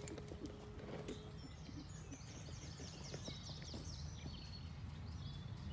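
Small birds chirping repeatedly in quick, falling notes over a steady low outdoor rumble. A faint steady tone sounds through the first second or so.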